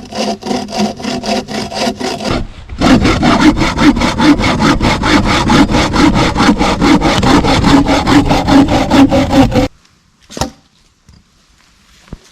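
Hand saw cutting wood to make a wedge, in quick, even back-and-forth strokes of about six a second. It pauses briefly about two seconds in, then saws steadily until it stops shortly before the end, followed by a single knock.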